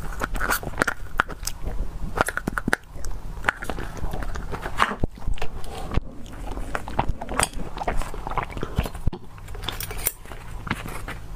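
Close-up eating sounds: chewing and lip smacking on soft whipped-cream cake, with a spoon scraping the inside of a paper cup at the start.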